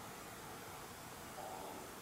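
Faint steady hiss of room tone, with a slight brief swell about one and a half seconds in.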